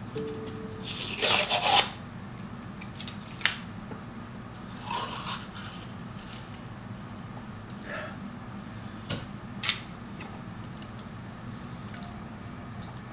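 A spoon scraping inside a plastic jar of almond butter, with a long rough scrape about a second in, a shorter one near the middle, and a few sharp clicks of the spoon against the jar in between.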